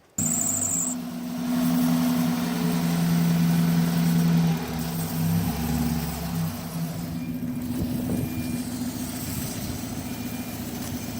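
A Mazda Miata's four-cylinder engine running, loudest for the first few seconds and then settling to a steady idle.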